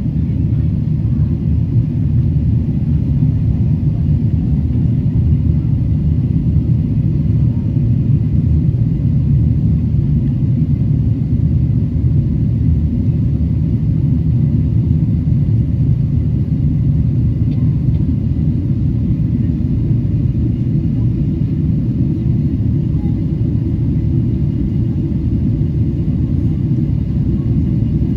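Steady low rumble of a Boeing 777-300's cabin in flight on approach: engine and airflow noise, even throughout.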